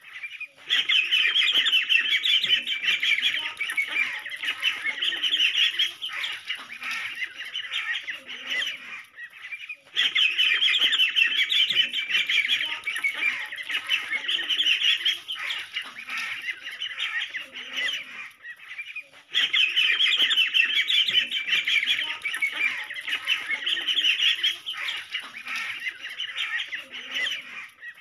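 Many ducklings peeping at once, a dense high-pitched chatter of short calls. It breaks off briefly twice, about ten and nineteen seconds in.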